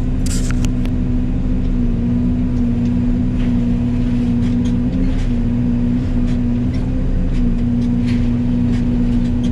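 Yanmar ViO80 excavator running a Fecon FMX36 forestry mulching head: a loud, steady droning hum with one strong pitch, a few faint ticks over it.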